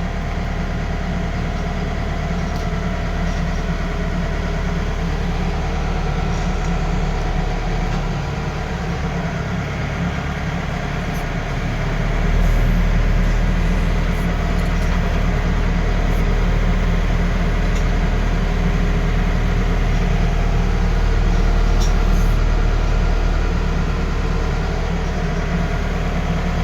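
Heavy diesel engine of a loader running steadily under load while towing a broken-down vehicle uphill, growing louder and deeper about halfway through.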